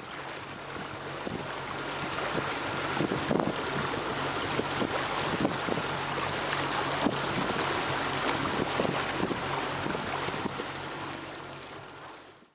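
Strong gusty wind buffeting the microphone, a continuous rushing with frequent sharp gusts; it fades out near the end.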